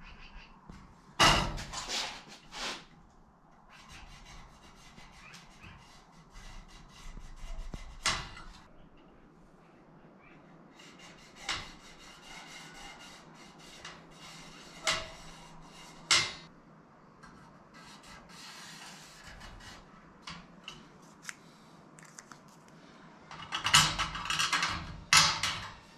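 Handling noise of a steel ruler and aluminium spar parts: scattered light knocks and clinks as the ruler is set down and shifted, with rubbing and scraping on the metal between them. Near the end comes a louder flurry of knocks and scraping.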